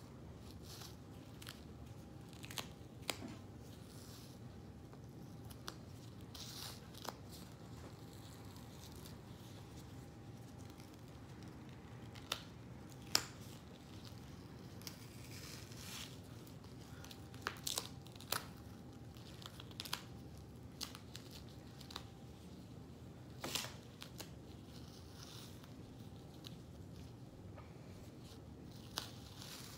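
An old adhesive central-line dressing being peeled off a plush teddy bear's fur with gloved fingers: intermittent soft tearing and crinkling with scattered sharp crackles, a few louder ones about 13, 18 and 23 seconds in. The adhesive is stubborn to peel from the fur.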